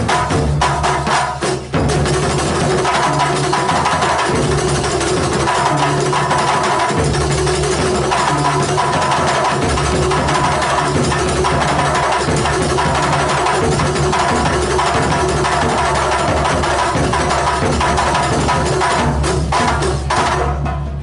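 Large traditional Javanese percussion ensemble playing a loud, dense rhythm together: big barrel bass drums, two-headed hand drums and hand-held frame drums, with a held tone over the beat. The playing eases off near the end.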